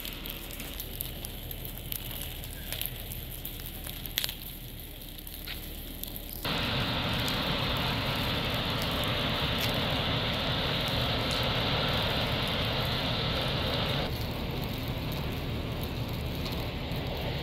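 Dry grass fire crackling, with scattered sharp pops. About six seconds in it cuts abruptly to a louder steady rushing noise, which eases off a few seconds before the end.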